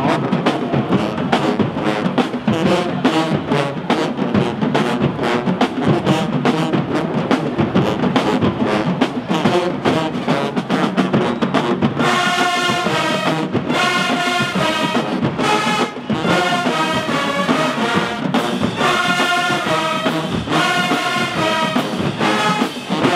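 Marching band playing, brass and drums together over a steady beat. About halfway through the music changes to bright, clipped brass chords hit again and again.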